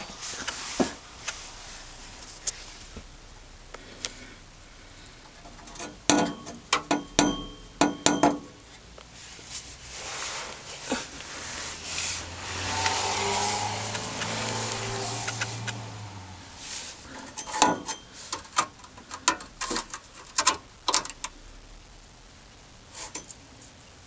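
Loose heat shield rattling on a 2000 Lexus ES300: bursts of sharp metallic rattles, one cluster about six to eight seconds in and another about eighteen to twenty-one seconds in. Between them is a steadier sound with a low hum.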